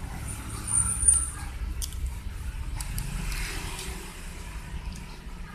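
A small screwdriver and loose metal parts of a spinning reel's bail assembly clicking now and then during disassembly, over a steady low rumble.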